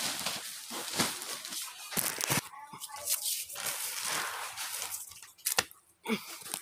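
Clear plastic packing bag crinkling and rustling as it is handled to wrap bundles of clothes, with a few sharp crackles.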